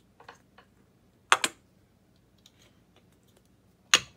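Clear plastic baseball display dome and its base being handled on a wooden table: a sharp double clack about a second and a half in and a single loud knock near the end, with light plastic ticks in between.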